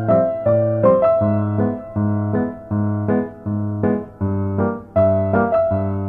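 Background music: a light melody of piano-like keyboard notes over a steady pulsing bass note.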